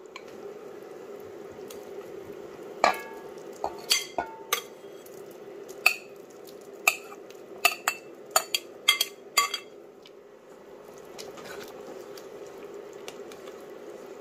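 A metal spoon clinking and scraping against a ceramic plate and the rim of an enamelled cast-iron pot as marinated chicken pieces are pushed into the sauce: about a dozen sharp clinks over several seconds, then quieter stirring. A steady low background noise runs underneath.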